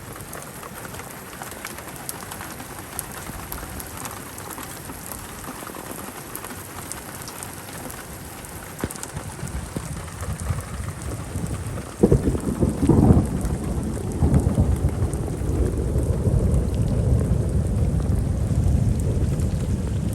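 Steady rain falling, then a sudden clap of thunder about twelve seconds in, followed by a long low rumble.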